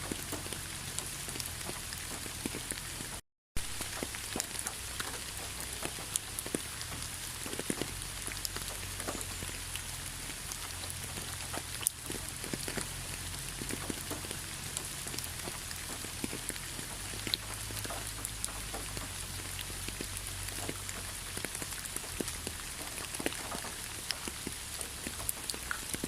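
Steady rain falling, a continuous hiss with many individual drops ticking on a surface. About three seconds in, the sound cuts out completely for a fraction of a second, then resumes.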